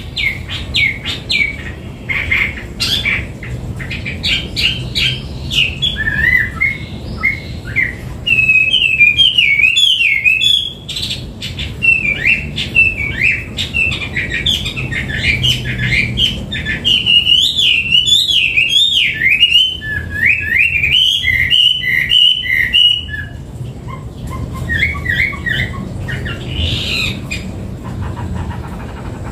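Chinese hwamei singing in full song: a long, loud run of varied whistled phrases with fast rising and falling slurs, going softer and sparser about three-quarters of the way through.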